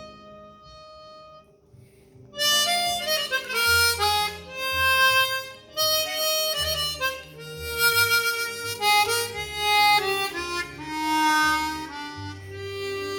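Seydel Volcany chromatic harmonica with Kettlewell Resonant Covers playing a slow melody. A held note fades at the start, and after a quiet pause of about two seconds the playing resumes.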